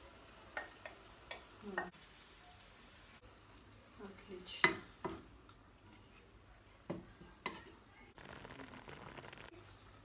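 A wooden spatula knocking and scraping against a ceramic bowl and a frying pan as cream sauce is scraped into the pan of turkey and stirred in, with a few sharp knocks and the loudest cluster of them about halfway through. A steady hiss of sizzling comes up near the end.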